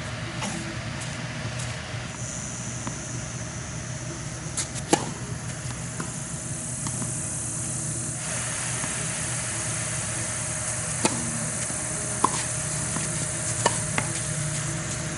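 A few sharp knocks of a tennis ball off racquet strings and the clay court, the loudest about five seconds in and several lighter ones in the last few seconds. Under them runs a steady outdoor hum and hiss.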